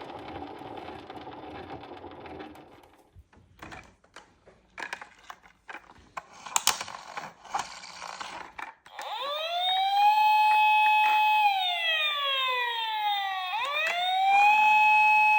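Scattered clicks and knocks, then about nine seconds in a toy emergency vehicle's electronic siren starts. It is a wail that rises, holds, slides slowly down and rises again.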